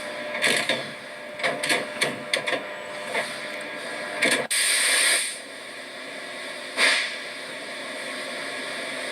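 Factory floor sounds: a steady background hum with scattered clicks and knocks, and a short loud hiss of air about halfway through.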